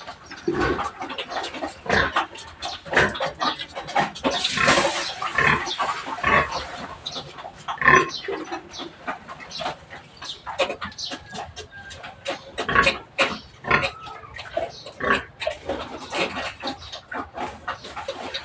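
Pigs grunting and squealing in their pens, many short irregular calls one after another, with short knocks mixed in.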